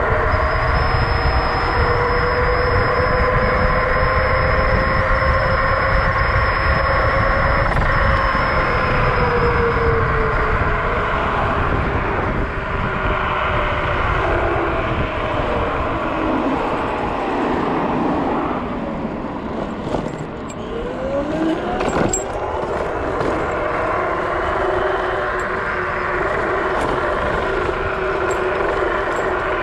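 Dual Pro (Dragon Lightning V2) dual-motor electric scooter ridden at around 45–50 km/h. Motor whine rides over wind buffeting on the microphone and the hum of its off-road tyres. The whine sinks in pitch as the scooter eases off, then rises again a little after twenty seconds as it speeds back up, with a sharp click and light metallic jingling from an aluminium keyring.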